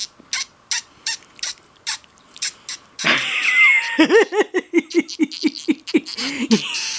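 A row of short kissing noises made through a FaceTime call, about two or three smacks a second. About three seconds in, a person breaks into laughter, a pulsing ha-ha-ha that runs on to the end.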